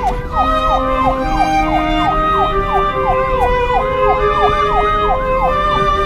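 Siren sound effect, a fast yelping wail that sweeps down in pitch about three times a second, over background music with held notes.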